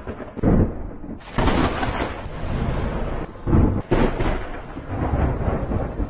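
Thunder: a rolling rumble broken by loud sudden claps about half a second, a second and a half, and three and a half seconds in.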